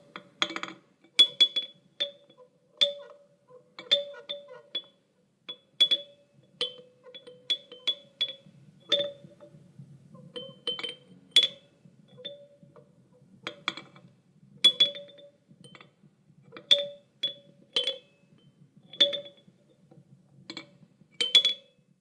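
Child's toy chime struck over and over in an irregular rhythm, about one or two strikes a second. Each metallic clink rings briefly at the same two pitches, one low and one high.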